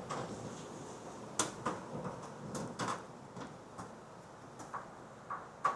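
Scattered sharp light clicks and knocks, about a dozen at uneven intervals, over a low background noise; the loudest come about one and a half seconds in, near three seconds, and just before the end.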